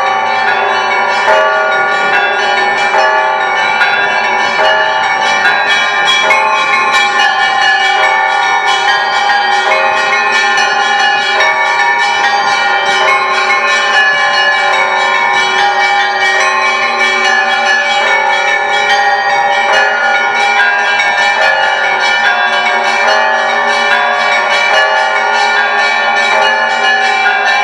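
Church bells of the Great Lavra Bell Tower ringing without pause in an Orthodox peal: many bells struck in quick succession, the small bells chiming rapidly over the steady hum of the larger bells.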